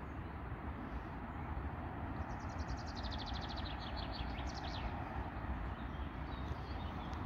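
A steady low outdoor rumble and hiss, with a songbird singing a fast trill of high notes from about two seconds in for nearly three seconds, ending in a few falling notes.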